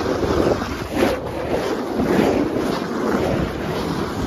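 Wind buffeting the microphone on a fast ride down a snow tube slide: a steady rushing noise that surges about a second in.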